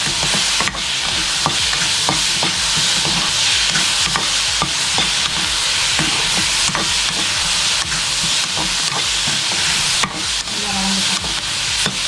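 Onions and tomatoes sizzling in hot oil in a pan as they are sautéed and stirred, with scattered light clicks and scrapes of the stirring utensil against the pan.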